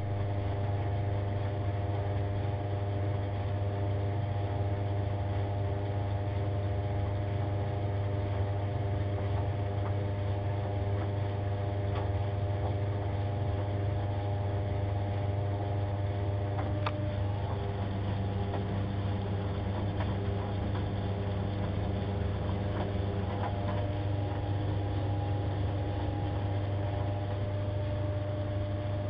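White Knight CL3A compact tumble dryer running with a steady, even hum, with a few faint clicks.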